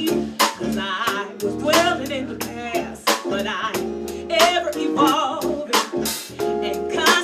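Live band playing an instrumental passage: steady drum kit hits under a lead melody line that wavers and bends in pitch.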